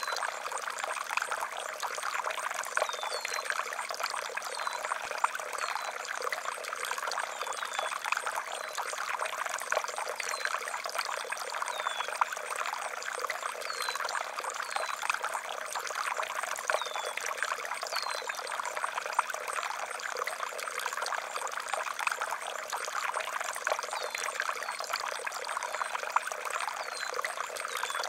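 Water pouring and trickling steadily, with short high chirps now and then.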